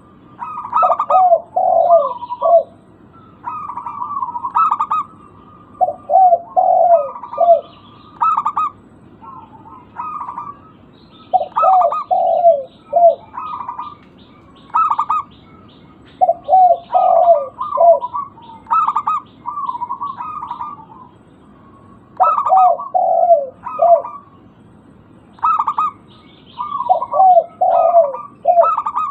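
Zebra doves cooing: phrases of short, clipped coos repeated every couple of seconds, some higher and some lower in pitch. A faint, fast chirping from a smaller bird runs above them for a few seconds in the middle.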